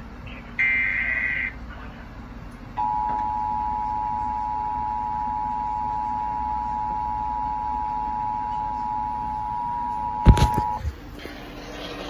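An Emergency Alert System activation starts with a harsh, buzzy data burst from the SAME header lasting about a second. After a short gap comes the two-tone EAS attention signal, a steady dual tone held for about eight seconds, which announces an emergency alert, here a flash flood warning. Near the end, as the tone stops, there is a sharp knock.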